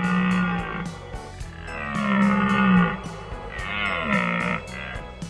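Three drawn-out, low animal calls, each about a second long, a recorded antelope call played over light background music.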